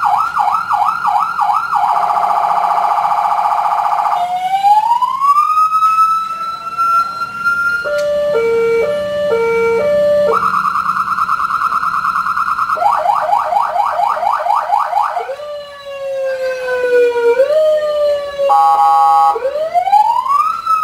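200-watt electronic siren cycling through its tone patterns: a fast yelp, a rapid warble, a slow rising wail, a stepped two-tone hi-lo, then further falling and rising sweeps, each pattern changing every two to three seconds.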